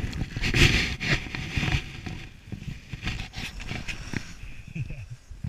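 Skis carving and scraping over packed snow at speed, with wind buffeting the microphone; loudest in a burst about half a second to two seconds in.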